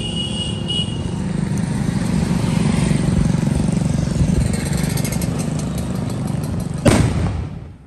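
A 2 kg paper-wrapped firecracker (paper vedi) smoulders with its fuse lit, then goes off with a single loud bang about seven seconds in. Motorcycle traffic runs steadily underneath.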